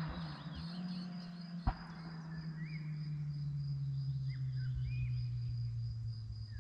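Kawasaki Z1000 motorcycle with a LeoVince exhaust heard faintly at a distance, its engine a steady low hum slowly falling in pitch. Birds chirp and an insect drones high above it, with one sharp click a little under two seconds in.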